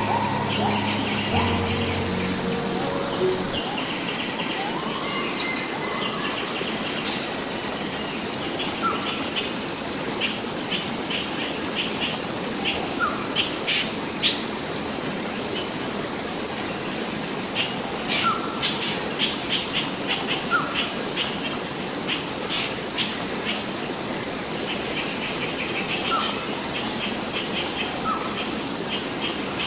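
Wild birds chirping in quick runs of short notes, with a few single rising calls, over a steady rush of flowing water. A few sharp snaps are heard, and a low steady hum sounds in the first few seconds.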